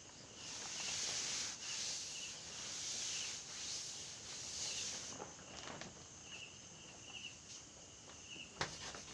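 Felt blackboard duster wiping chalk off a blackboard in several rubbing strokes for about five seconds. It is followed by faint chalk strokes on the board and a sharp tap near the end.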